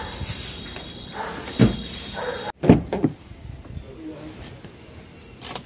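Car doors and people climbing into a car: a few dull thumps and knocks, the loudest a sharp knock about three seconds in.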